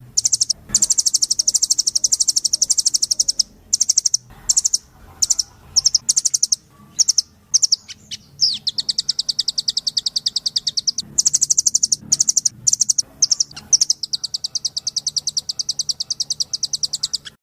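A nuthatch (rambatan doraemon) singing rapid, high, chattering trills of sharp repeated notes. Long runs of several seconds alternate with short pauses and brief bursts.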